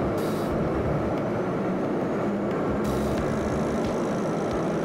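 Jet airliner rolling along a wet runway, heard from inside the cabin: a steady, loud roar and rumble of engines and wheels, with brief hissing flares about a quarter second and three seconds in.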